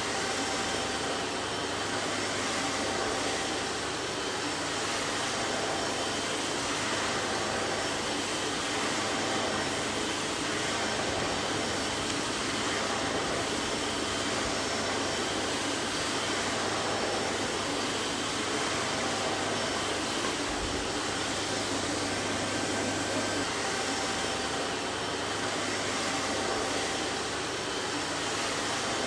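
Vacuum cleaner running steadily: an even whooshing noise with a faint steady motor hum and a few thin whining tones, unchanging throughout.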